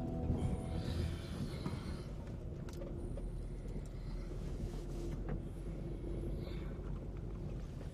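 Car driving slowly over a dirt track, heard from inside the cabin: a steady low engine hum and tyre noise with a few faint clicks.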